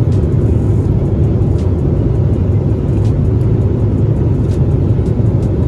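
Steady low rumble of airliner cabin noise inside a Boeing 777-300ER: engine and airflow noise heard from an economy seat.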